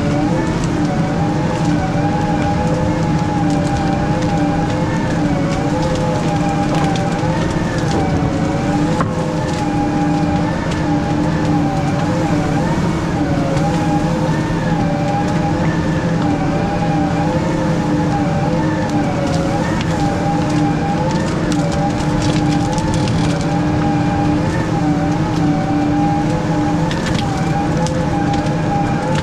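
Weiler S340 grapple skidder running under load as it drags a bundle of logs: a steady, loud machine drone with a whine that wavers slowly up and down in pitch.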